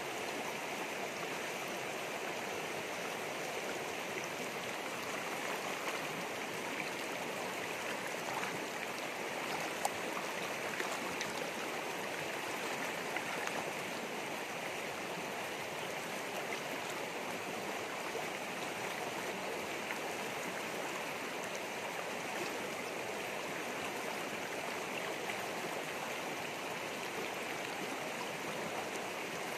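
Shallow rocky stream running over boulders in small rapids: a steady rushing of water.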